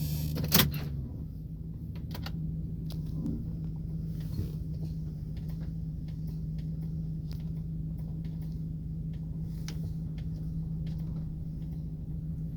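2008 GMC Sierra 1500's 5.3 V8 running with a steady low drone, and a sharp click about half a second in.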